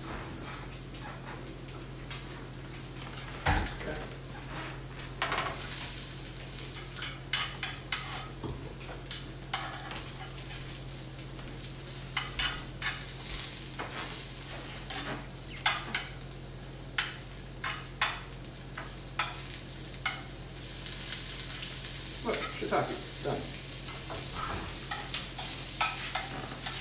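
Shiitake mushroom caps searing in a hot skillet with a steady sizzle, broken by frequent sharp taps and clicks as they are picked up and turned over one by one. The sizzle grows louder about three-quarters of the way through.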